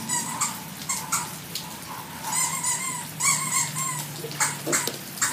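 Water splashing in a plastic baby bathtub as hands scoop and slap it, with a run of short, high-pitched yelping squeals in the middle.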